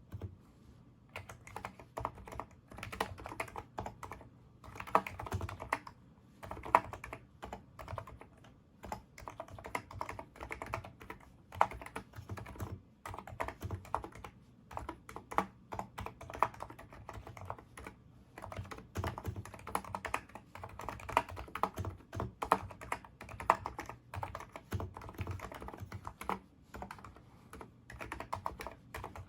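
NIZ Micro82 electro-capacitive keyboard with 35 g switches being typed on: quick runs of keystrokes with brief pauses between them.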